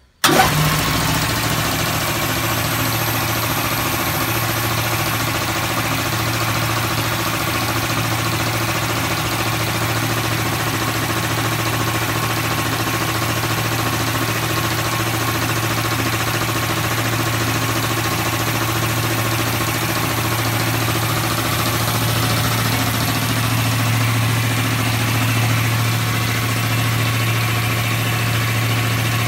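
Two-stage, belt-driven industrial air compressor with a 4 hp single-phase electric motor, switching on abruptly and then running steadily with a strong low hum as it pumps air into its 200-litre tank.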